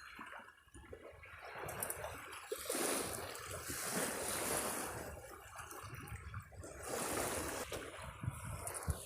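Small sea waves washing at the shoreline: a steady rushing of water that swells and ebbs every couple of seconds.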